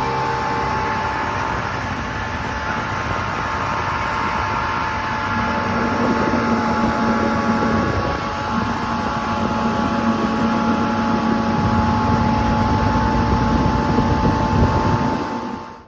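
Chrysler 90 hp two-stroke outboard motor running steadily under way, with wind on the microphone. A second steady engine tone joins about five seconds in.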